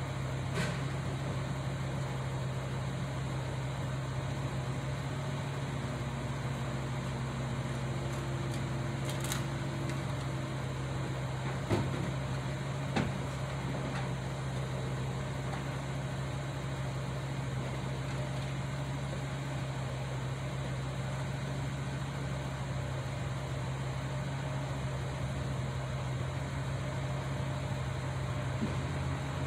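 A steady low mechanical hum, even throughout, with a few faint clicks and knocks.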